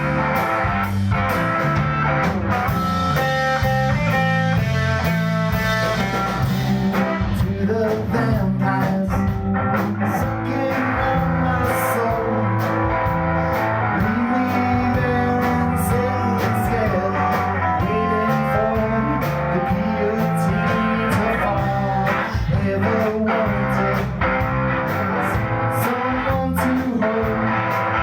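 Live rock band playing, with electric guitar over bass and drums, and a voice singing at times.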